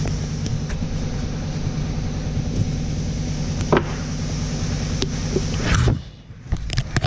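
A steady machine hum, with a few light knocks and clicks from wooden pieces being handled. The hum dips briefly near the end, and a flurry of clicks follows.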